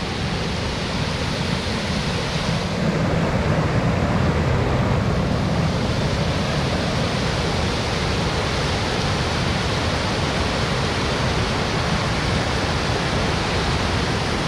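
Muddy floodwater rushing across a road and pouring over its edge: a steady, loud rush of water that grows a little louder about three seconds in.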